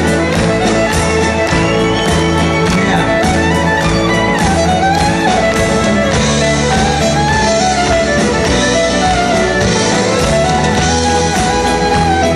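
Live country band playing: a fiddle carries the melody over strummed guitars and drums keeping a steady beat.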